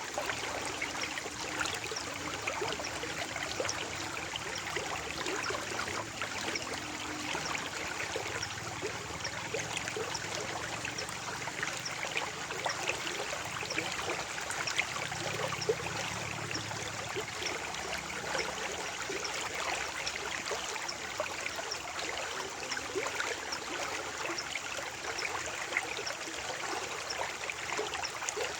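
Stream of water flowing steadily over stones, with a dense patter of small splashes and trickles.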